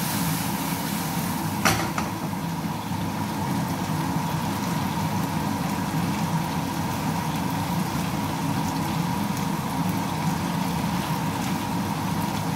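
Steady whir of a kitchen range hood fan running over the stove, with a faint even tone in it. One sharp knock comes about two seconds in, and there are a few light scrapes and taps as a wooden spatula stirs the fish in the frying pan.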